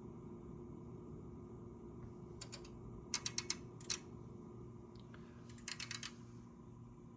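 Tektronix 11403A digitizing oscilloscope running its power-up self-test: groups of sharp, rapid clicks, typical of relays switching in the instrument and its plug-ins, over a steady low hum. There is a burst about two and a half seconds in, four quick clicks and then a single one shortly after, and another burst near the end.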